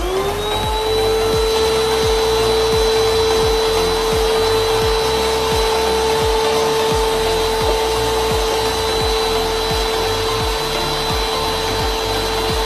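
Canister vacuum cleaner starting up, its motor whine rising in pitch over the first second, then running steadily with a constant whine and rushing air.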